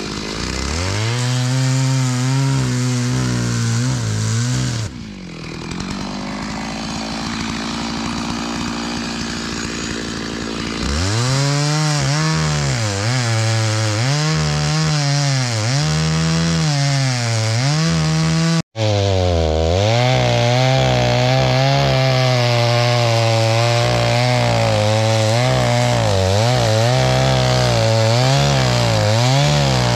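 Stihl chainsaw cutting logs, its engine note sagging and recovering again and again as it bites into the wood. It falls back to a lower, quieter running for several seconds about five seconds in, then cuts steadily again to the end.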